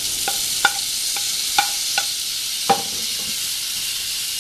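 Chopped onion sizzling in hot oil in a non-stick pan as it is scraped in and stirred with a wooden spatula, a steady high hiss throughout. About six sharp taps of the spatula come in the first three seconds.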